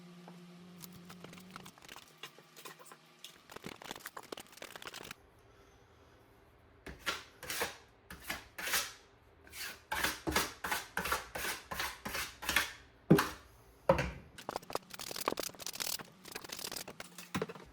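Putty knife spreading and scraping drywall mud into the seams and holes of faux brick panels: a run of short scraping strokes, about one or two a second, through the second half.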